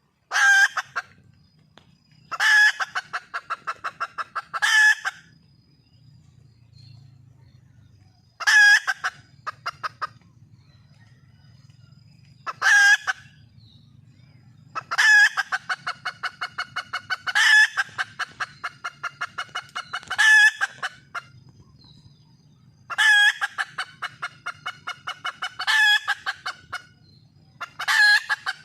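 Red junglefowl hen calling over and over, the call of a hen seeking a mate: each call a loud squawk followed by a fast run of clucks, about six a second, repeated every two to four seconds.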